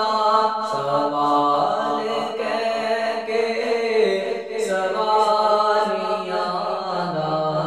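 A man's voice singing an Urdu salaam (a devotional poem), without instruments, in long held notes that slide from one pitch to the next.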